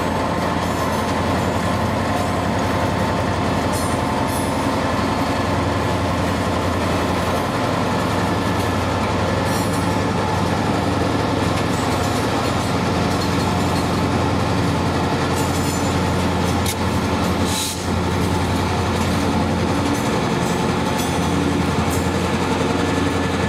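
A train running: a steady diesel engine drone with occasional clicks of wheels on the rails.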